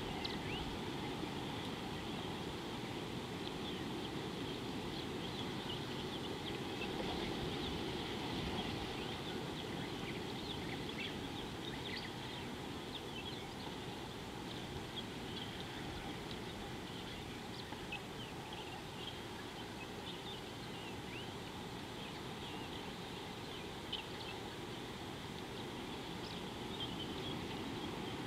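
Riverbank bush ambience: many short, high bird chirps scattered throughout, over a steady low background noise.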